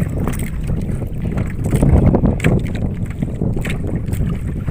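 A fishing boat's engine being hand-cranked, turning over with a low rumble that swells about two seconds in.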